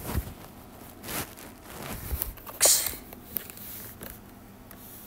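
Light taps and rustles of handling noise close to the microphone, with one louder short rustle a little past halfway.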